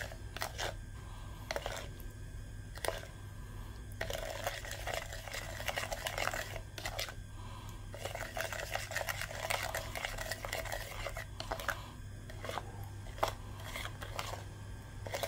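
Metal spoon stirring a thin honey, lemon juice and sugar sauce in a ceramic bowl, scraping and clicking irregularly against the bowl as the sugar is mixed in until even. A steady low hum runs underneath.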